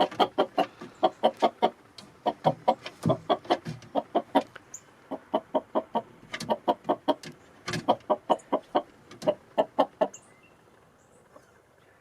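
Chickens clucking in quick runs of short notes, one run after another, falling quiet about ten seconds in.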